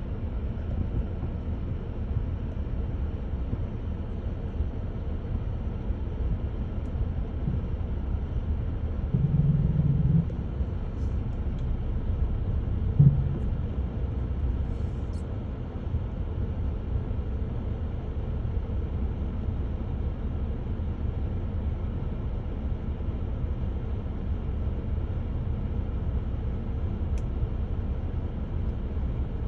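Steady low background rumble with no bird song, a brief louder hum about nine seconds in and a single knock about thirteen seconds in.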